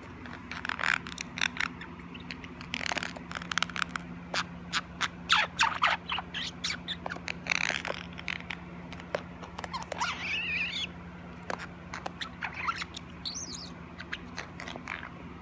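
A small pet animal making many little squeaks and chirps in irregular bursts, with a wavering chirp about two-thirds of the way through. A steady low hum runs underneath.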